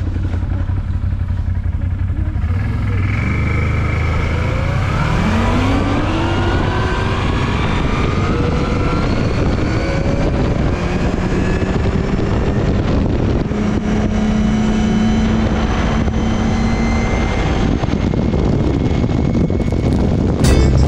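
ATV engine running, accelerating about five seconds in with its pitch rising, then running at a fairly steady speed.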